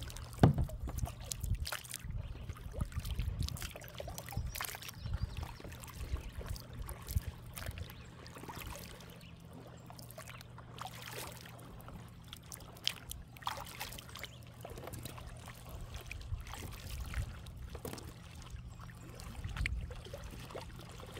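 Kayak paddling: water trickling and splashing off the paddle blades in irregular strokes, with small knocks. There is one sharp knock about half a second in, over a low steady hum.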